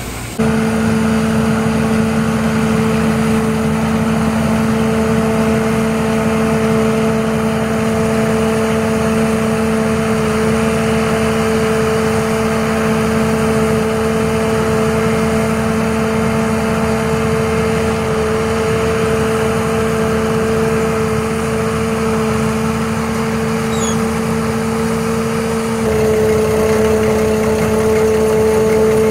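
CH250S rice combine harvester running steadily while cutting and threshing rice, a constant-pitch machine hum. Near the end the hum shifts slightly in pitch and gets a little louder.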